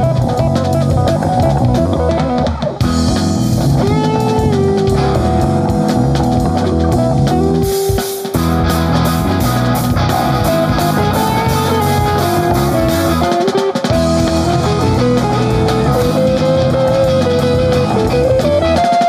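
Rock band jamming without vocals: a guitar lead line sliding between notes over drum kit and bass guitar, with short breaks about 3 and 8 seconds in.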